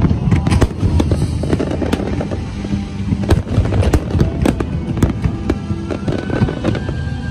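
Aerial fireworks display: shells bursting and crackling in quick, dense succession, many sharp reports over a continuous low rumble. Music plays underneath.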